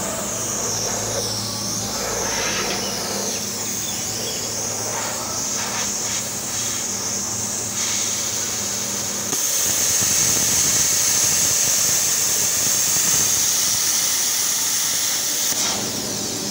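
Handheld plasma cutter hissing steadily as it cuts steel plate, with a low steady hum underneath. About nine seconds in the hum drops away and the hiss gets louder and fuller, easing slightly near the end.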